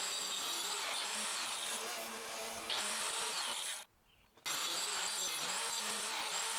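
Wooden footing block being smoothed by sanding: a steady scraping hiss of abrasive on wood, which breaks off for about half a second a little past the middle.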